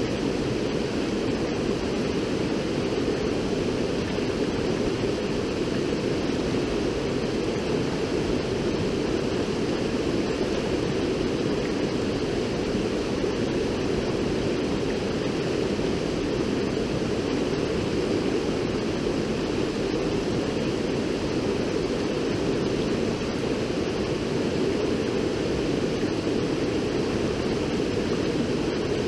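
River water rushing in a steady, unbroken, deep-sounding noise.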